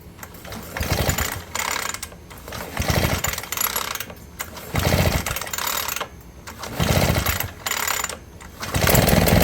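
A ProRun 51 cc backpack blower's two-stroke engine being pull-started on a newly fitted recoil starter. There are four pulls about two seconds apart, each about a second long, then a fifth near the end on which the engine starts and keeps running.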